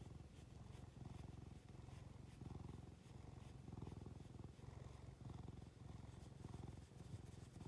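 Domestic cat purring close to the microphone: a steady low rumble that swells and eases with each breath, about once a second.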